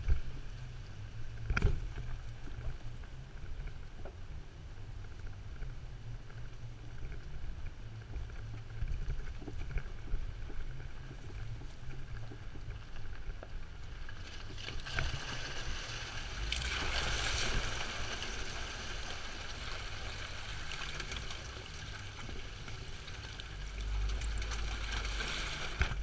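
2014 Jeep Wrangler Rubicon driving slowly over a dirt track, its engine and tyres making a steady low rumble, with one sharp knock about a second and a half in. About midway a louder hissing rush of tyre and water noise swells for a few seconds as it rolls through a muddy puddle.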